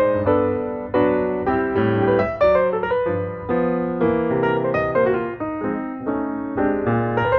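Piano music: notes and chords struck one after another, each fading after it is played.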